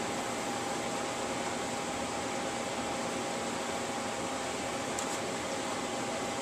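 Steady whir of a ventilation fan with a constant hum, and a faint click about five seconds in.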